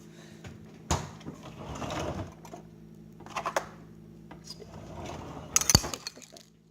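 Kitchen handling sounds while a snack is prepared: a sharp click about a second in, a second or so of rattling, a few more clicks, and a sharp knock near the end, over a steady low hum.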